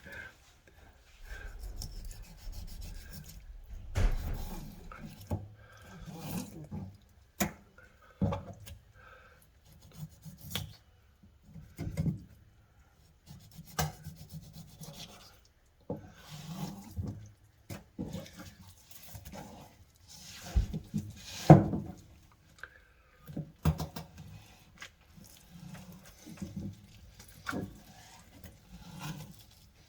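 Knife scraping and cutting through a sea bass on a wooden cutting board, with irregular knocks of the blade and fish against the board.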